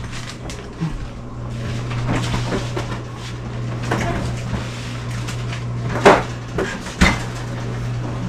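Kitchen storage being opened and shut while food is put away: a few sharp knocks and bumps of doors and containers, the loudest about six and seven seconds in, over a steady low hum.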